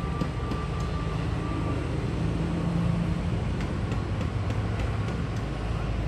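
Steady outdoor urban ambience of motor traffic, a continuous low rumble and hiss, with a faint thin tone in the first second or so and a few light clicks.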